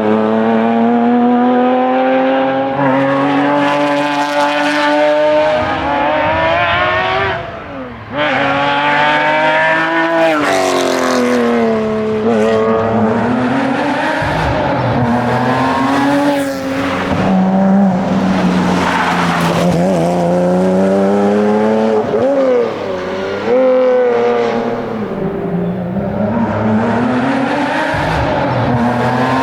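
Porsche Cayman rally car's engine at full racing pace, revs climbing hard through the gears and falling back on lifts and braking, over and over. There is a brief lift-off about eight seconds in.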